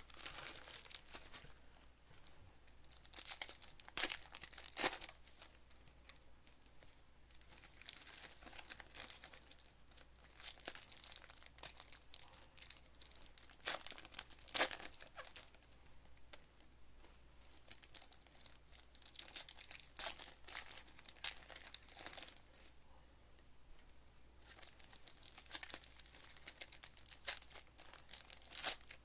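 Foil wrappers of Panini Select basketball card packs crinkling and being torn open by hand, in irregular bursts with a few sharp loud rips.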